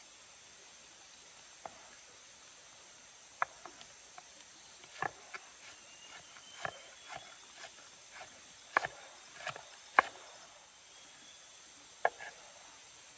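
Large kitchen knife slicing an onion on a wooden cutting board: irregular knocks of the blade against the board, the loudest near the middle and again near the end. Insects drone steadily in the background.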